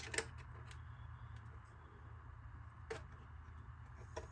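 Faint clicks and taps of hard plastic parts as a tail light lens is pushed into its grooves in a plastic RC crawler body: a sharp click about a quarter second in, another near three seconds and a last one near the end, over a low steady hum.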